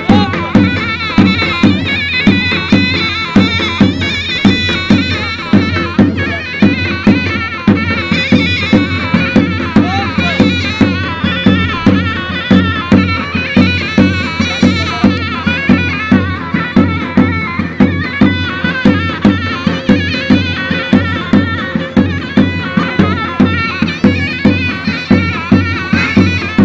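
Turkish folk dance music: a shrill double-reed pipe, likely a zurna, plays a wavering melody over a steady, even beat on a large bass drum (davul).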